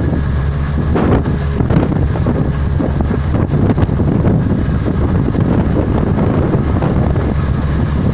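Wind buffeting the microphone over the steady low drone of a ship's engine, with the rush of the churning wake behind the stern.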